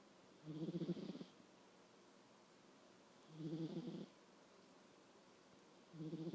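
A nine-year-old cat snoring: three short, quiet snores, each under a second long, coming about every two and a half seconds. The last one falls right at the end.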